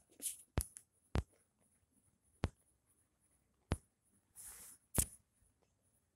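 Kitten playing with a plastic comb: sharp clicks and taps of the comb, five or six of them about a second apart. There is a short scuffling rustle about four and a half seconds in.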